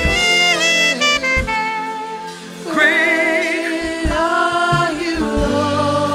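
Live church worship music: a band of keyboards and bass guitar plays under wordless, wavering sung notes held for a second or so at a time.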